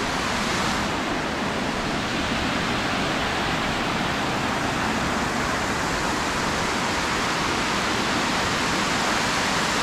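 A steady, even rushing noise with no breaks.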